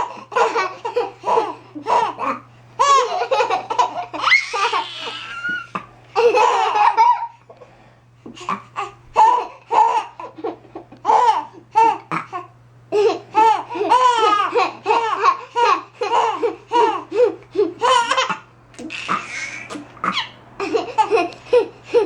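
A four-month-old baby laughing in repeated bursts of belly laughs and giggles, with a short lull about a third of the way in.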